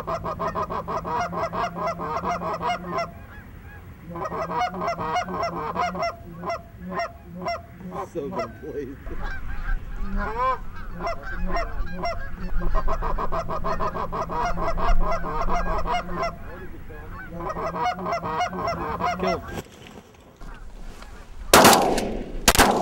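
Canada goose honking and clucking in rapid runs of calls, with pauses between the runs. Near the end, two shotgun shots about a second apart.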